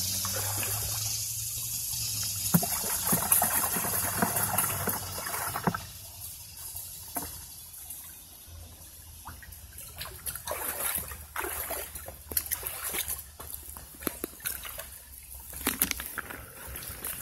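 Water being poured out in a steady trickle for about five and a half seconds, then stopping, to fill a pet's water dish. Scattered rustles and knocks follow.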